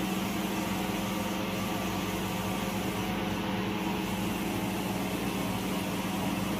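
Circular knitting machine for mink blanket and faux-fur carpet fabric running at steady speed: a continuous mechanical hum with a steady low tone and no change in pace.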